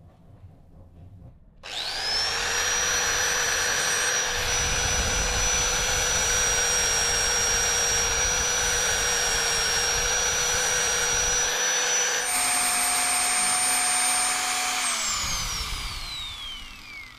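Handheld angle grinder with an abrasive disc starting up about two seconds in and running at a steady whine while grinding a soldered brass band. Near the end it is switched off and the whine falls as the disc spins down.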